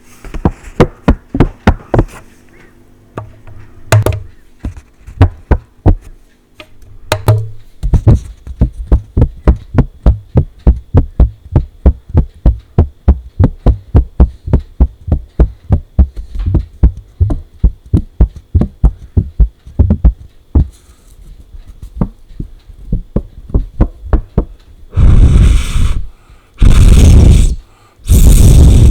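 Fingers tapping on paper, a string of sharp knocks that comes irregularly at first and then settles into a fast, even run of about three taps a second. Near the end, three loud stretches of noise about a second long each take over.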